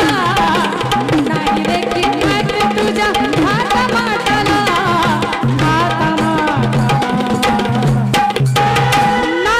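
Live devotional folk song accompaniment: tabla strokes whose bass tone glides up and down, under a steadily held melody. The music dips briefly shortly after eight seconds in.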